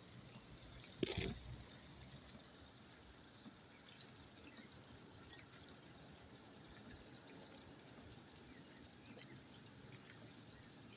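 Rain dripping and trickling: faint scattered drips over a low steady hiss. A single brief loud knock comes about a second in.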